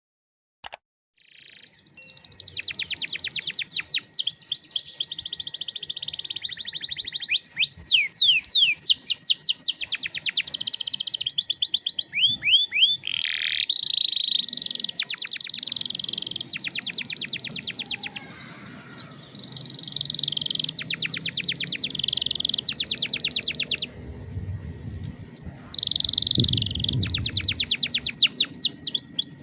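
Domestic canary singing: long, rapid trills of quickly repeated high notes in bursts of a second or two, broken by short pauses. The song starts about a second in.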